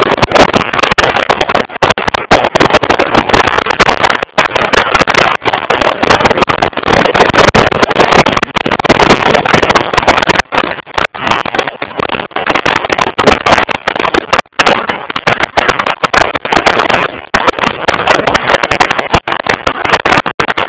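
Loud, choppy rush of wind buffeting the microphone of a camera on a moving motorcycle at road speed, mixed with the bike's running noise, cutting in and out briefly many times.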